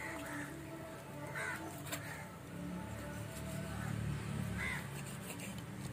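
Crows cawing outdoors: several short, hoarse caws spaced a second or more apart, over a low steady hum.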